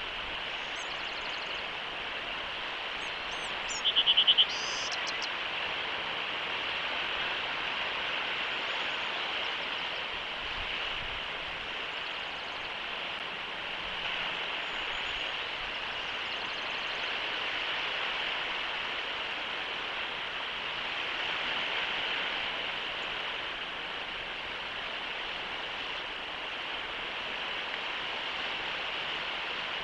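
Steady outdoor hiss from a nest-cam microphone. About four seconds in comes a brief, loud run of five quick high chirps, a bald eagle call at the nest, with a few faint high chirps before it.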